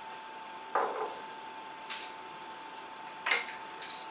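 A few short knocks and clinks of kitchen utensils against a bowl and the wooden table, about four spaced over a few seconds, one a sharp click. Under them runs a steady faint high hum.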